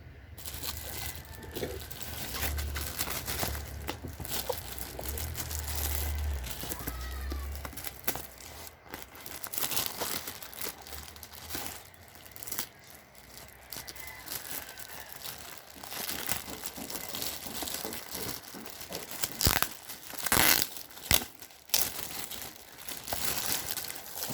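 Plastic and paper packaging crinkling and tearing as a box of headphones is unpacked by hand: continuous irregular rustling, with the loudest sharp crackles and tears a few seconds before the end.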